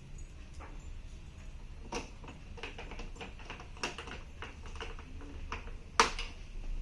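Scattered clicks and light taps of hands working on a TV set during a speaker replacement, with one sharp knock about six seconds in.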